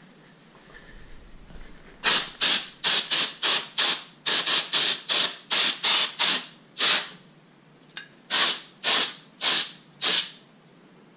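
A trigger spray bottle squirted in about twenty quick bursts, each a short hiss: rapid at first, then after a pause four slower squirts near the end.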